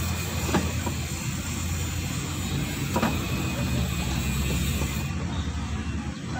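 Mitsubishi Mirage engine idling with a steady low hum, with two short sharp clicks about half a second and three seconds in.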